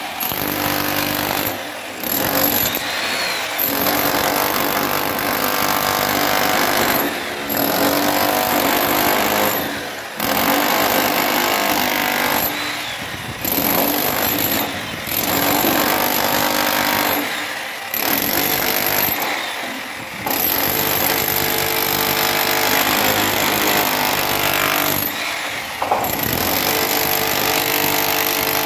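Handheld electric demolition hammer with a chisel bit hammering into a reinforced concrete floor slab. It runs in steady bursts and stops briefly several times as the trigger is released.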